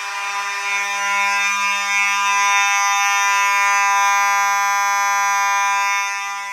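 Vintage Simplex fire alarm horns (2901-series horns and a 4903 horn strobe) sounding together in a steady, continuous harsh buzz. It swells about a second in and fades near the end.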